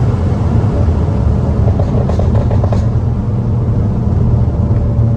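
SEAT Leon Cupra's tuned turbocharged four-cylinder engine, with downpipe and resonator delete, running under a steady load while driving: an even, low exhaust note without revving up or down.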